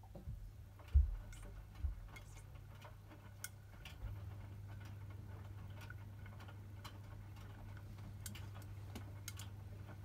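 Hotpoint WMFUG 942 front-loading washing machine on a cotton wash: a couple of low thumps in the first two seconds, then the drum motor starts with a steady low hum about four seconds in as the drum turns the wet load. Light, irregular clicks run throughout.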